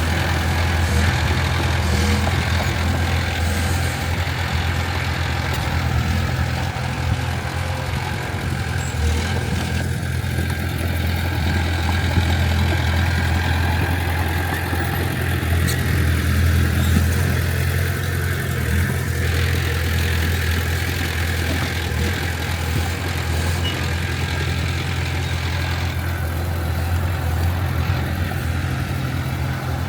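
Heavy diesel engine of earthmoving machinery running steadily with an even, deep drone.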